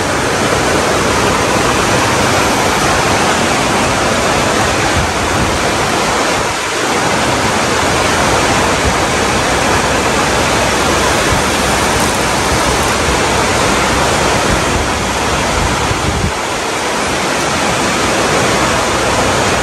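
Engine lathe running, turning a red engine-mount bush: a steady, noisy whir that dips briefly about a third of the way in and again later on.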